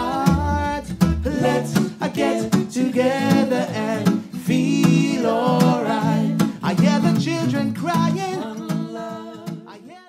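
A small acoustic band closes a song: a male lead vocal with backing vocal harmonies over strummed acoustic guitar. Plucked upright double bass notes drop out about a second and a half in, and the music fades away near the end.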